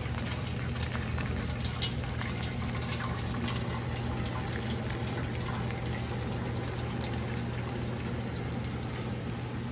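Boiled-down maple sap running from the evaporator's brass draw-off tap into a felt filter cone, over sap boiling in the evaporator pan. A steady low hum lies underneath, with scattered small pops.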